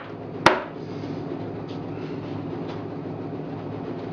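A single sharp wooden knock about half a second in as the glued box-joint corner of a pine hive body is pressed into place, followed by a steady low background hum.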